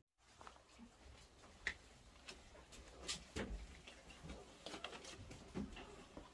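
Scattered light clicks and taps at an irregular pace, the sharpest about two seconds in, over faint room noise.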